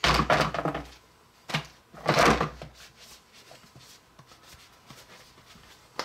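Plastic parts and a cardboard card being handled and set down: two short bursts of rustling and knocking in the first couple of seconds, then a few faint small clicks.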